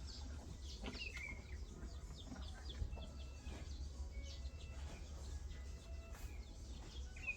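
Small birds chirping and twittering in short, quick high calls, over a steady low hum.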